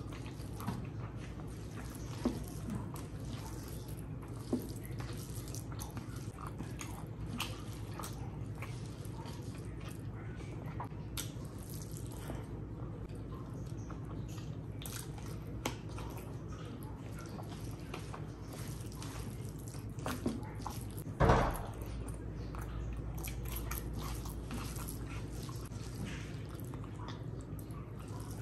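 Close, wet eating sounds: a hand squishing rice and curry together, with mouth smacking and chewing as handfuls go in. There are many small clicks and smacks over a steady low hum, and one louder wet mouth sound about two-thirds of the way through.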